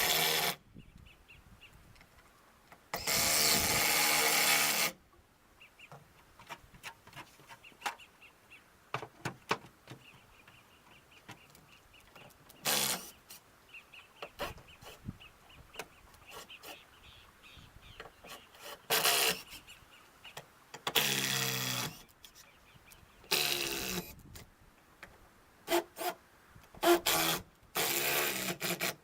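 A handheld power tool run in several bursts of one to two seconds, with scattered clicks and knocks in between.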